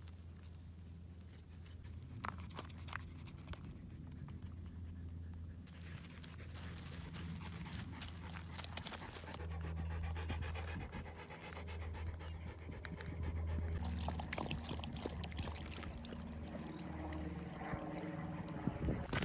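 Husky panting in a steady rhythm, louder and closer in the second half, over a steady low hum.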